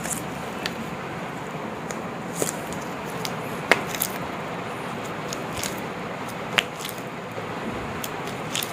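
Scattered short clicks and pops during a chiropractic manipulation, the louder ones about a third of the way in and again about three quarters through, over a steady background hiss.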